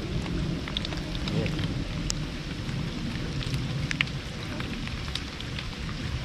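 Steady rain falling, with scattered sharp ticks through it.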